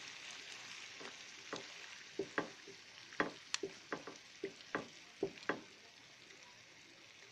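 Duck pieces in ground spice paste sizzling faintly in a frying pan as they are stirred with a wooden spatula for the kosha (sautéing) stage. A string of sharp clicks and knocks from the stirring runs through the first five or so seconds, then only the faint sizzle is left.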